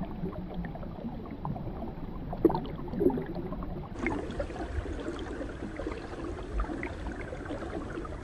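Shallow marsh water gurgling and lapping around a wooden punt, with small scattered splashes and knocks.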